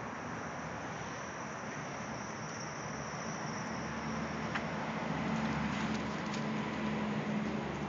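Steady outdoor street background noise, with a low hum that swells from about five seconds in, typical of passing road traffic.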